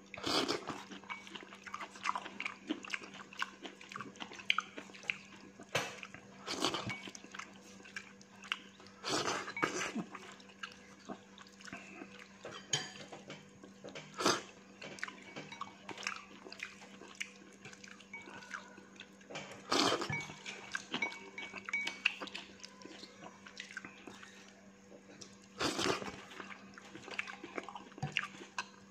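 A person eating fried rice noodles close to the microphone: wet chewing and mouth noises, with louder slurps or smacks every few seconds, over a steady low hum.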